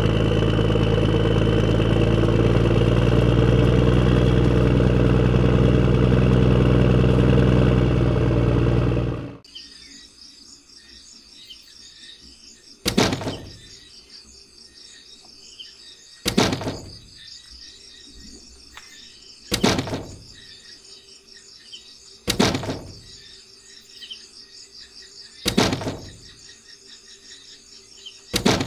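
A tractor engine sound effect running steadily, cutting off abruptly about nine seconds in. After it, birds chirp in the background and six short sharp sounds come about three seconds apart.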